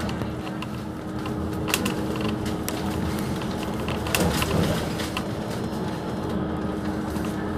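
Inside a moving bus on the highway: steady engine and road hum with a constant low drone, and loose fittings rattling in sharp clicks a few times.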